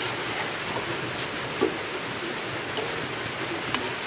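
Metal spoon stirring thick, simmering cocoa in a stainless steel saucepan, clinking against the pan a few times, the loudest clink about one and a half seconds in, over a steady hiss.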